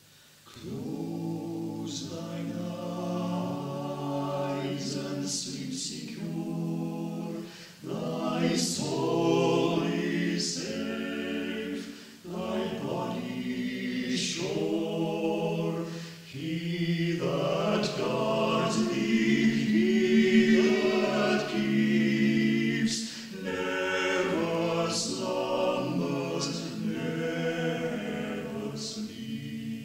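Amateur choir singing unaccompanied, in phrases with brief pauses between them, on an early-1960s reel-to-reel tape recording.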